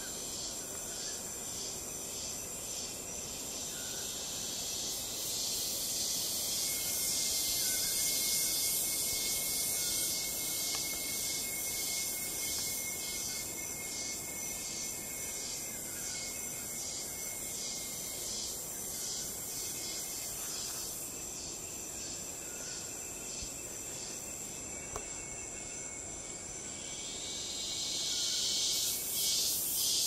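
Insects in a high-pitched chorus that pulses in a fast, even rhythm over a steady thin whine, growing louder near the end.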